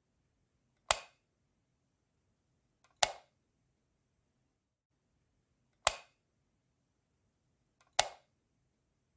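A light switch clicking four times, sharp single clicks about two to three seconds apart, each dying away quickly, as the bulb is switched off and on.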